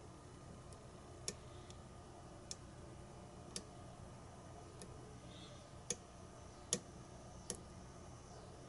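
Faint, sharp metallic clicks, about seven spaced roughly a second apart, as a hook pick lifts and sets the pins of a re-pinned Sargent pin-tumbler padlock under tension.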